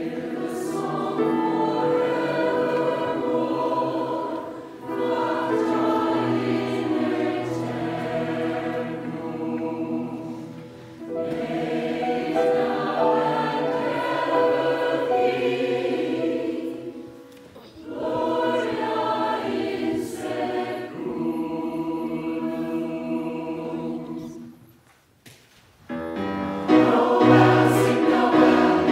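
Mixed choir of men's and women's voices singing in long phrases with short breaks between them. Near the end it pauses for about a second, then comes back in louder.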